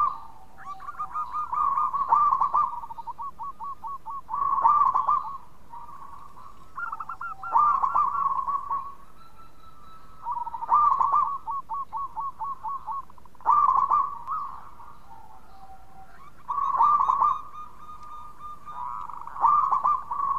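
Zebra dove (perkutut) cooing: a louder coo every two to three seconds, each followed by a quick run of short staccato notes at about five a second.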